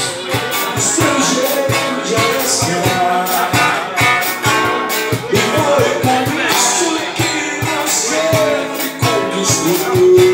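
Live acoustic band music: a strummed acoustic guitar with cajón and cymbal percussion keeping a steady beat, cymbal accents every second or two, and a voice singing.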